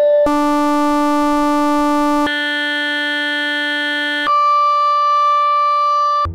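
A run of held electronic tones, each with many overtones, switching abruptly to a new pitch about every two seconds; the last is a thinner, higher beep-like tone that cuts off sharply near the end.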